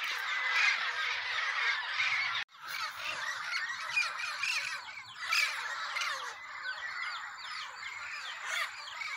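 A flock of parrots squawking and chattering in a dense, continuous chorus, cut off for an instant about two and a half seconds in.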